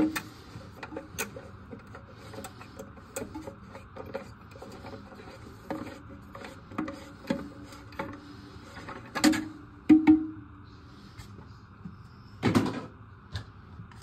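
Plastic flush-valve parts being handled inside a porcelain toilet tank: scattered light clicks and knocks, some with a short low ring, with a few louder knocks past the middle.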